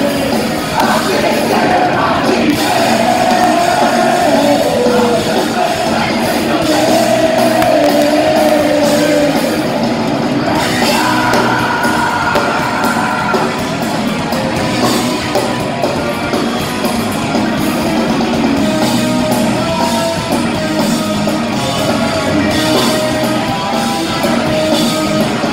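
Punk band playing live: several voices singing and yelling over electric guitar, bass and drums, heard from the crowd.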